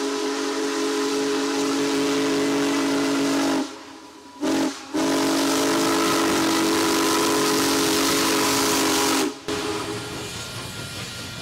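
Union Pacific Big Boy steam locomotive's whistle sounding a chord of several notes: one long blast, a short one, then another long one. After the whistle stops, a quieter rush and hiss of the passing engine and train.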